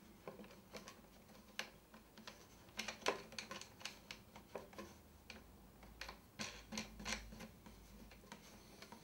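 Faint, irregular small clicks and taps from a bolt being turned by hand to draw two wooden baseboard battens together, closing the foam-filled join between them.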